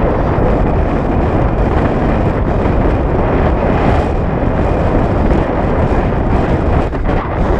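Loud, steady wind buffeting the microphone, a dense rumbling rush without let-up.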